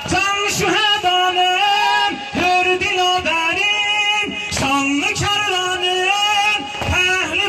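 One voice sings an Ashura mourning lament (noha) in long held notes that step between pitches, with short breaks between phrases.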